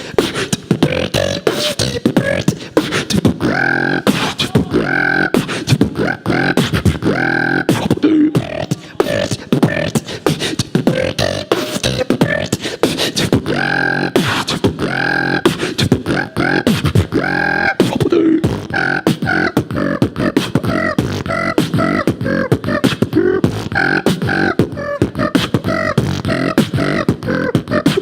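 Human beatboxing: a dense, fast run of mouth-made drum sounds (kicks, snares, clicks) with short pitched vocal tones woven into the rhythm.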